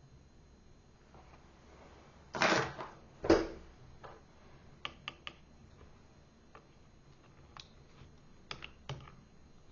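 Light clicks and knocks of plastic and metal parts handled during laptop disassembly: two louder short knocks about two and a half and three and a half seconds in, then a scatter of sharp small clicks.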